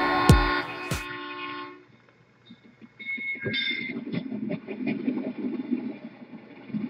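Electronic intro music ends on a final hit and a held chord that fades out about two seconds in. After a short pause, a man exhales a large cloud of e-cigarette vapour, a rough breathy rush lasting a few seconds.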